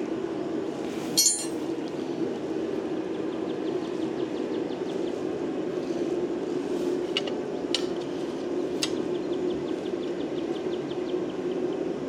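Metal blacksmith hand tools clinking as they are picked up and sorted: one sharp ringing clank about a second in, then a few lighter clicks later on, over a steady low hum.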